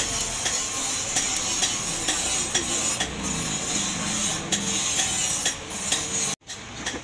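Charcoal forge fire heating a steel cleaver blade in the coals: a steady hiss with faint scattered crackles, broken by a very short gap near the end.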